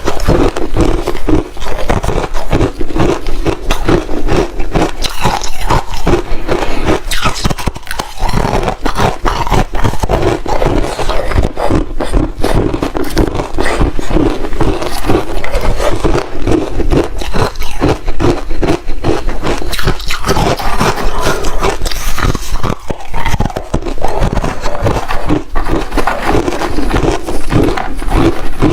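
Ice being crunched and chewed close to the microphone: a continuous dense run of crisp crunches and cracks with no pause.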